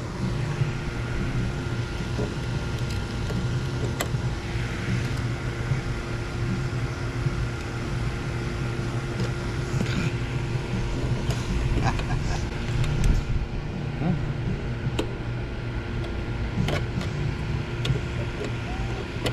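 Steady machine hum with a low rumble throughout. Scattered light clicks and taps over it come from hands bending bare copper bonding wire and fitting it into a copper lay-in lug clamp.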